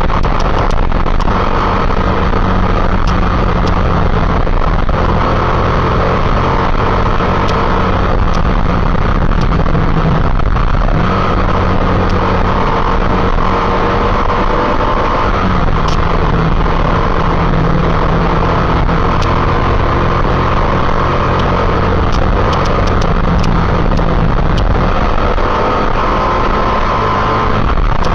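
Motorcycle engine running steadily at riding speed under heavy wind rush, its pitch shifting slightly now and then.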